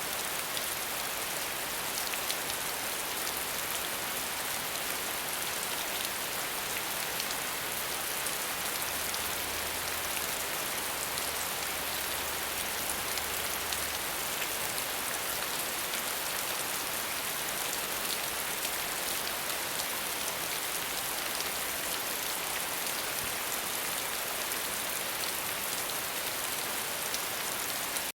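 Steady rain falling on a hard surface, an even hiss with fine individual drop patter.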